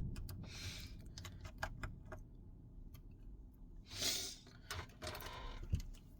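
Small light clicks and taps of precision repair tools, a screwdriver and pry tools, on the metal and plastic parts of an opened Samsung Galaxy Z Flip 5, with two brief rushes of noise, one just under a second in and one about four seconds in.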